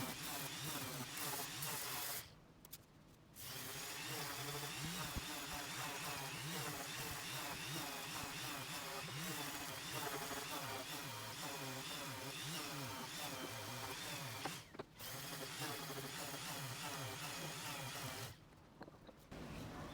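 Handheld electric power tool running on wood, its motor pitch wavering as the load changes. It stops briefly about two seconds in, again near fifteen seconds, and once more near the end.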